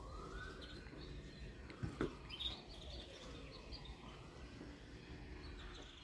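Faint songbird chirps in the background, with a single light knock about two seconds in.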